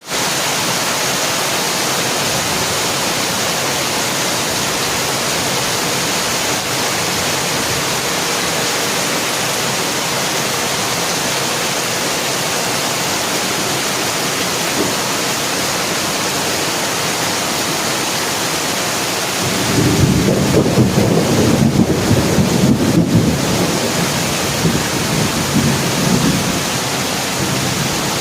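Heavy rain falling in a steady hiss, with a long rumble of thunder rolling in about two-thirds of the way through and fading out over several seconds.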